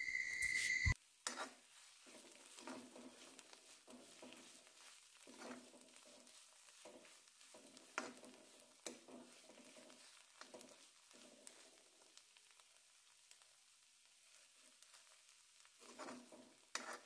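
Steel spoon stirring and scraping spinach and potato bhaji around a kadai: faint, irregular scrapes and taps against the pan. A steady high tone sounds for about the first second and cuts off.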